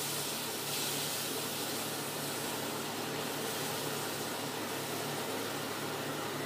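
Shrimp sizzling in a frying pan over a gas flame as it is stirred with a spatula: a steady hiss, with a low steady hum underneath.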